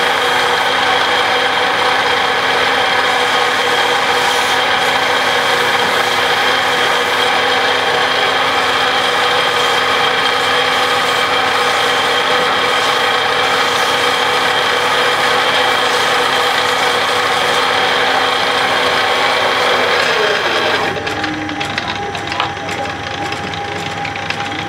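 Wood lathe motor running with a steady whine as a turned wooden sofa leg spins against folded sandpaper, which adds a hiss. About 20 seconds in, the lathe is switched off and winds down with a falling pitch, followed by a few light knocks as the leg is handled.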